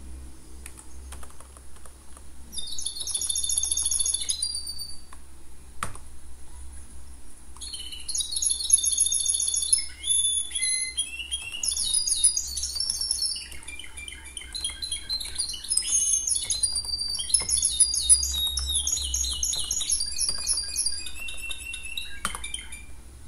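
Birds chirping and warbling in rapid high phrases, starting a couple of seconds in with a short pause near the middle, over a few sharp computer keyboard keystrokes.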